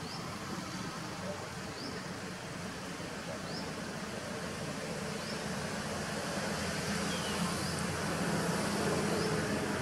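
Steady outdoor background noise, with a faint short high chirp repeating about every one and a half to two seconds.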